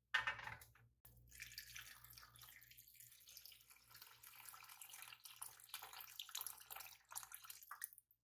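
Water running from a kitchen tap, starting about a second in and cut off shortly before the end, after a brief sharp sound at the very start.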